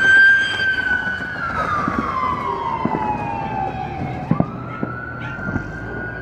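Emergency vehicle siren in a slow wail. The pitch holds high, slides down over about three seconds, then sweeps quickly back up a little past four seconds in. A couple of short sharp pops come at about the same moment.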